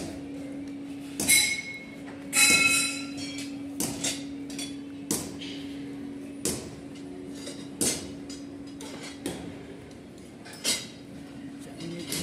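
Sharp metal clanks and ringing clinks, roughly one every second or so and uneven in strength, over a steady low hum.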